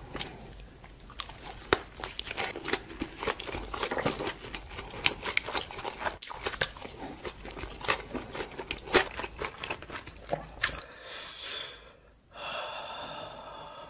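Close-miked chewing of spicy dumplings: wet, crunchy mouth sounds with many small clicks. Near the end the chewing stops and gives way to hissing breaths and a drawn-out breathy groan, a reaction to the dumplings' heat.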